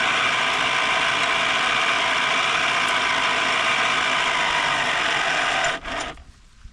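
ATV winch running steadily as its old steel wire rope is unwound from the drum, with a gear-like whir that stops abruptly near the end.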